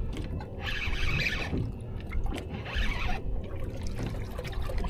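Water sloshing and splashing against a boat's hull, in uneven swells.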